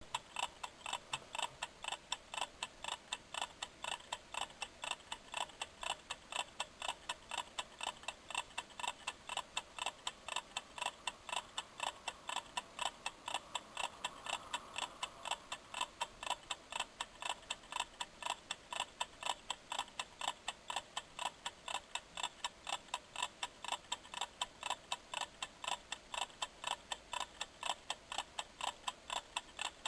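Kitchen timer ticking steadily as it counts down, an even train of short, rapid ticks.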